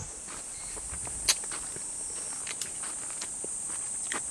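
Footsteps on bare soil with a few sharp clicks, the sharpest about a second in, over a steady high-pitched insect chorus.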